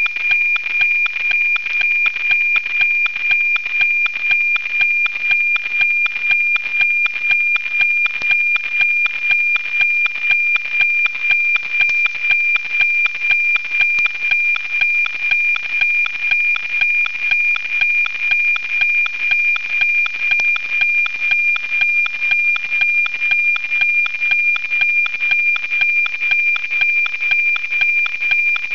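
NOAA 19 weather satellite's analogue APT image signal, received and FM-demodulated by radio: a steady high tone with a fast, regular tick-tock beat, over radio hiss.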